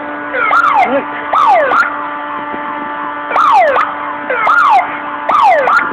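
Emergency vehicle sirens sounding, several overlapping: repeated quick falling sweeps in pitch over a steady held tone.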